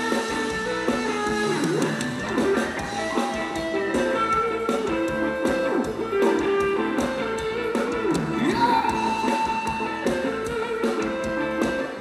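Thai band music with guitar to the fore, playing without a break.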